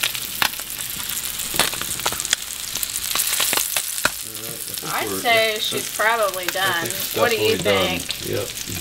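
Yellow jack fillets sizzling and crackling in a hot frying pan as they blacken, nearly done. From about halfway, a person's voice sounds over the sizzle.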